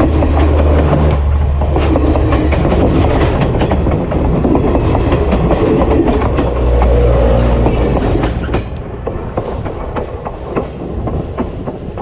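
A train rolling directly over the track from between the rails: a loud rumble of wheels on rails with rapid clicking and clatter. It gets quieter after about eight and a half seconds.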